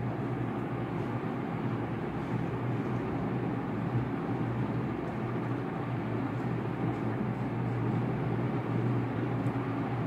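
Steady low background rumble with a faint hiss and no distinct events.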